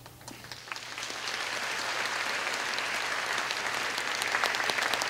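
A large audience clapping, building over the first second or so and then holding steady.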